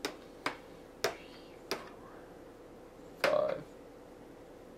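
Plastic miniature figure set down hex by hex on plastic Heroscape terrain tiles: a few sharp clicks about half a second apart, then a longer clatter about three seconds in.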